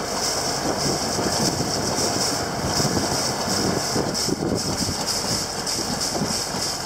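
Tayana 37 sailboat's inboard diesel engine running steadily as the boat motors along, mixed with a steady rush of wind and water.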